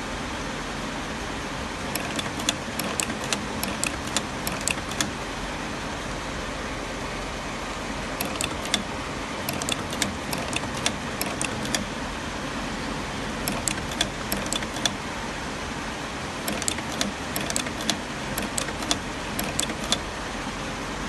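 Shoe-making machinery running with a steady hum, broken by four bursts of sharp clicks a few seconds apart, several clicks a second in each burst.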